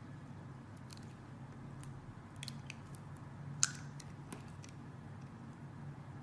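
Blade cutting into a bar of soap: scattered crisp ticks and crackles, with one sharp snap a little past halfway, over a faint steady low hum.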